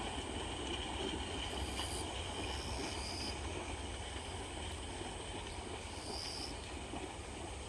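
Grass insects chirping steadily, with a few short higher chirps, over a steady outdoor rush and a low wind rumble on the microphone.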